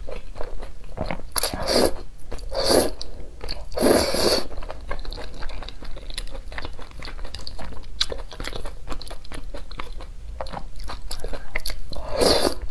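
Close-up eating sounds: thick noodles in sauce sucked into the mouth in several loud slurps, around two, three and four seconds in and again near the end, with wet chewing clicks in between.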